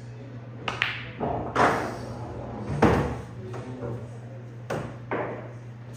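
Sinuca (snooker-style) balls knocking on the table: about six sharp clacks spread over several seconds. The loudest, a heavier knock with a deeper thud, comes near the middle. A steady low hum sits underneath.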